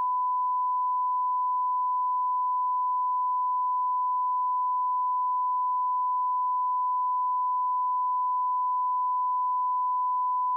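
A continuous 1 kHz censor bleep: a single pure tone held at a constant level without a break. It blanks out the caller's reply giving the street address on a released 911 call recording.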